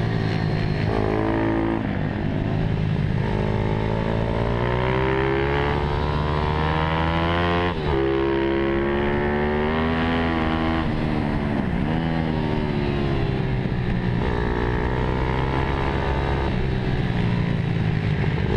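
Mini GP motorcycle engine heard on board while lapping. Its pitch climbs steadily under acceleration, drops suddenly about eight seconds in, then falls and climbs again as the bike slows for corners and drives out of them.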